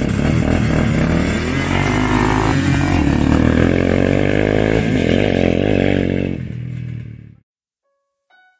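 Two quad ATV engines, one a Yamaha Blaster two-stroke, revving and pulling away through the gears, rising in pitch several times. They fade and cut off suddenly about seven seconds in.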